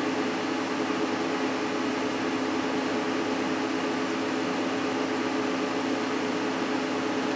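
Steady electric hum of a fan or small motor running, with a few held low tones over an even whir.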